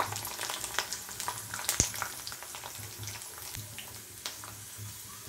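Black soybeans (bhatt) roasting in hot oil in a kadhai: a faint sizzle with scattered sharp pops and crackles, one louder pop a little under two seconds in. This 'chat chat' crackle is the sign that the roasting beans are nearly done, and it gives bhatt ki chudkani its name. A low hum runs underneath.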